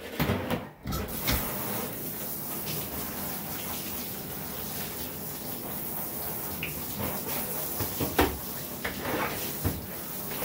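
Handheld shower sprayer running, water spraying onto a dog's wet coat and splashing in a bathtub. A few knocks come just as it starts.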